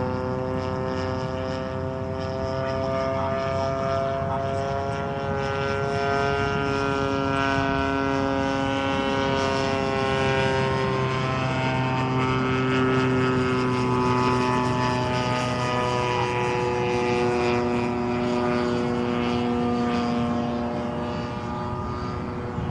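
Propeller drive of the Porter OctaQuadPlane, a large model quadplane, flying its fixed-wing cruise leg overhead. It makes a steady drone made of several tones that slide slowly in pitch, shifting around the middle as the aircraft passes.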